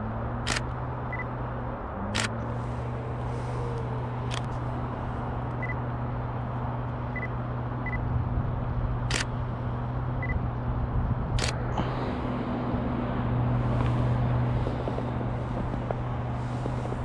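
Nikon D610 DSLR shutter firing five single shots, spaced irregularly a couple of seconds apart, over a steady low hum.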